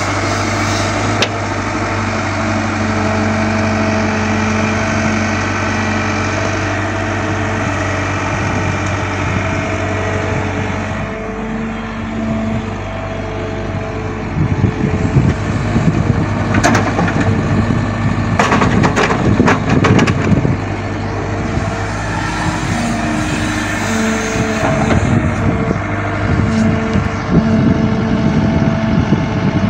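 Caterpillar hydraulic excavator's diesel engine running steadily. About halfway through it grows louder and rougher, with a loose clatter of soil and clods dropping into a dump truck's steel bed, and a second rough stretch comes near the end.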